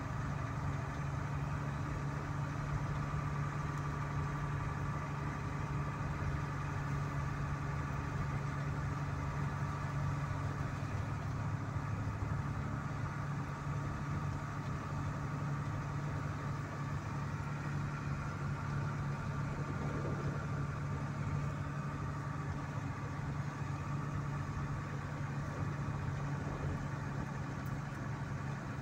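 A vehicle's engine running steadily with road noise, heard from inside the cabin while driving.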